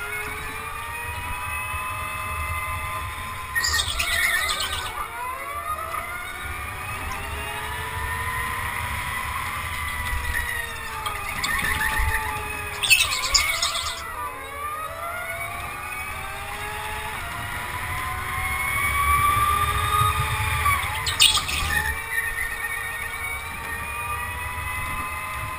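Indoor electric go-kart motor whining at high pitch, rising on the straights and dropping as the kart slows into corners, with other karts' whine overlapping. Three times, short bursts of tyre squeal come as the kart slides through a corner.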